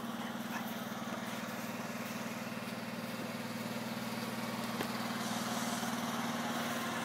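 Generator engine running steadily at constant speed, an even low hum. One short click about five seconds in.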